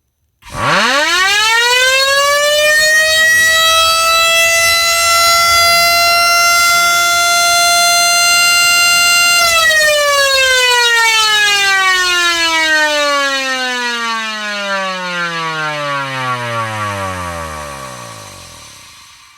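Electric motor siren winding up quickly to a steady, loud tone, held for about nine seconds, then switched off and winding down in a long falling glide until it fades out.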